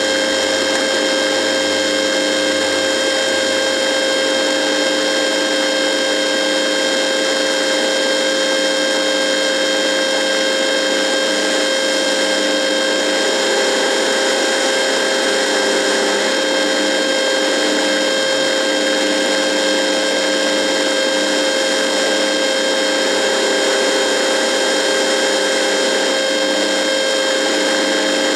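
A radio buzzing: a steady hiss of static with several fixed tones whining through it, a few of the lower ones dropping in and out.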